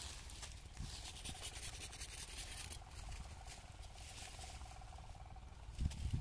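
Coffee-tree branches and leaves rustling and snapping as they are cut back with a hand pruning saw, in irregular strokes that fade after a few seconds. A faint steady hum comes in from about halfway, and a low bump comes near the end.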